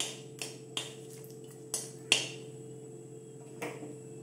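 A metal spatula stirring bay leaves, a dried red chilli and panch phoron in hot oil in a metal kadai gives about six sharp, irregularly spaced clicks over a steady low hum; the loudest comes a little past two seconds in.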